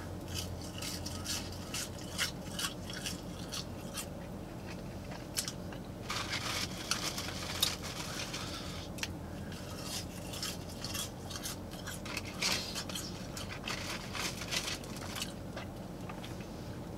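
A person chewing French fries with wet mouth clicks, smacks and soft crunching, many short sharp clicks scattered through.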